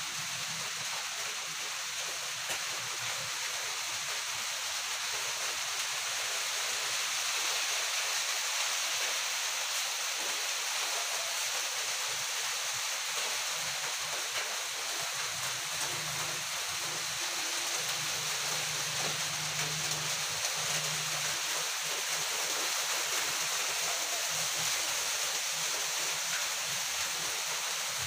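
Rain falling steadily, a continuous even rushing hiss.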